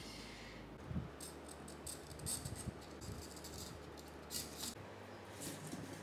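Faint handling noises: scattered light rustles and clicks as a plastic frame of four PC cooling fans is fitted against the aluminium fins of an air-conditioning evaporator core.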